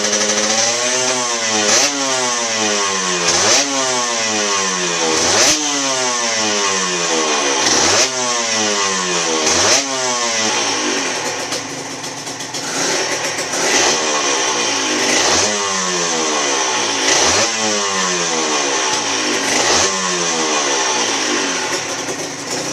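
Honda NSR150's single-cylinder two-stroke engine, fitted with a Tyga aftermarket exhaust, blipped repeatedly on the stand: the revs rise sharply and fall away again roughly every two seconds.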